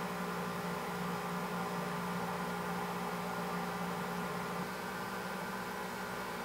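Steady machine hum with an even hiss and several held tones, a little quieter from about four and a half seconds in.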